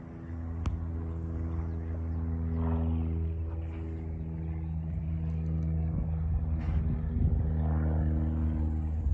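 A motor running at constant speed gives a low, steady drone with a fixed pitch, with a single click about a second in.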